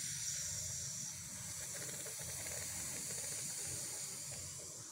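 Long, steady hiss of breath drawn in through clenched teeth with the lips parted: the sheetkari pranayama inhalation. It tapers slightly toward the end.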